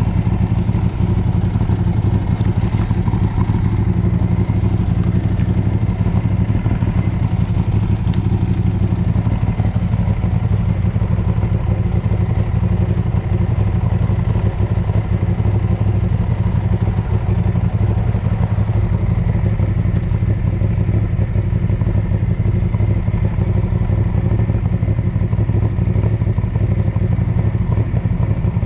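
Ducati Streetfighter 848's L-twin motorcycle engine running at a steady, unchanging pitch, with no revving.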